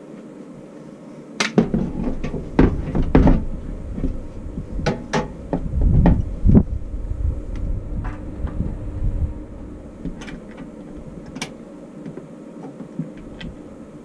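A heavy wall-mounted defibrillator cabinet knocking and thumping against a wooden tongue-and-groove wall as it is lifted and pushed into position. A quick run of knocks and bumps comes in the first half, followed by a few lighter taps.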